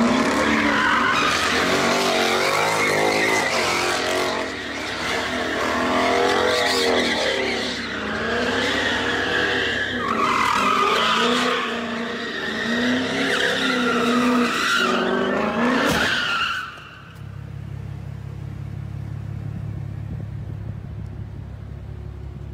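Car drifting on a concrete parking deck: tyres squealing in long wavering screeches over the revving engine. About sixteen seconds in the squeal stops suddenly, leaving a steady low engine rumble.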